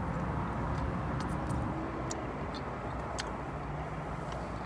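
Steady low rumble of a car cabin's background, with scattered small clicks and smacks from chewing a chicken sandwich.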